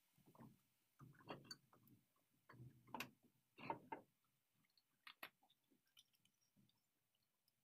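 Near silence, with a few faint scattered clicks and taps that thin out toward the end.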